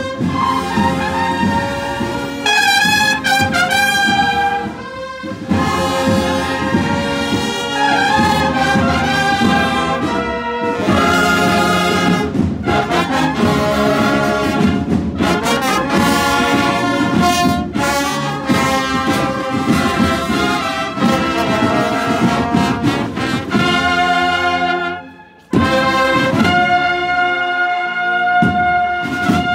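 A Spanish cornet-and-drum band's massed cornetas (valved bugles), backed by tubas, playing a processional march. The music breaks off briefly near the end, then comes back with a long held chord.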